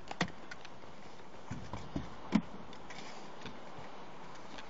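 Scuba gear being handled: a few light knocks and clicks, the loudest about two and a half seconds in, over a steady hiss.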